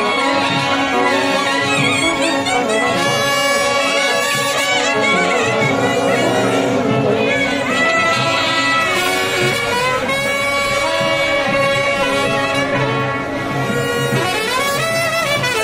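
Street brass band playing a melody together, trumpets with a clarinet, loud and continuous with long held notes that slide in pitch.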